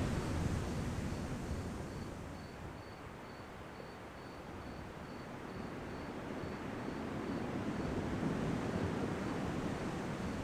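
Ocean waves washing in: the surf eases off a couple of seconds in and swells again toward the end. An insect chirps steadily in the background, about twice a second.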